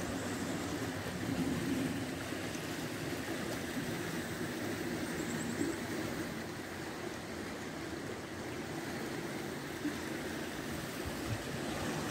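Shallow river water flowing steadily over a stony riffle, an even rushing babble of water over rocks.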